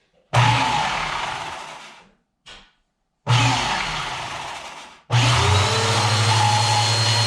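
Bissell Powerforce Helix vacuum cleaner switched on three times during a test run with its new brush roll belt. The first two short runs cut off and wind down. The third, about five seconds in, spins up with a rising whine and runs steadily.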